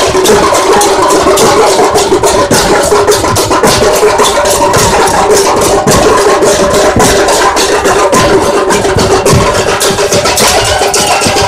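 Several large skin-headed drums beaten fast with curved sticks, a dense, unbroken drumming rhythm, very loud and distorted.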